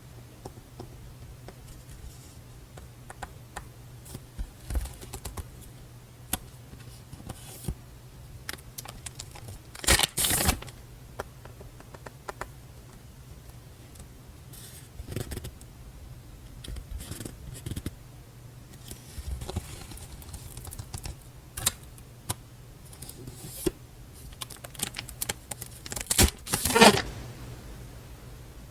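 Paper stationery being handled: rustling and scraping with scattered small taps and clicks. There are two louder bursts of rustling, one about ten seconds in and one near the end, over a faint steady low hum.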